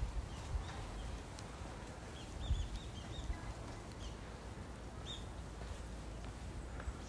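Small birds chirping in short, scattered high calls over a steady low outdoor rumble, with a low thump about two and a half seconds in.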